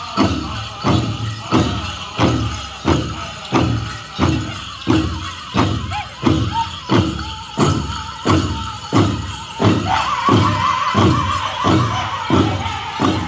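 Powwow drum group's big drum struck in a steady beat, about one and a half beats a second, with the singers' song over it; high, wavering singing comes in near the end.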